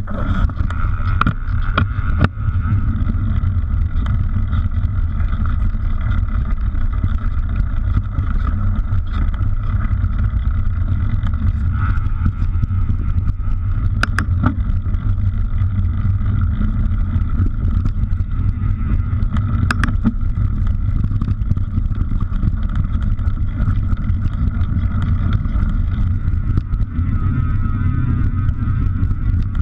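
Steady wind and trail rumble on an action camera's microphone while riding a mountain bike down a dirt trail, with a faint steady whir over it and two sharp clicks partway through.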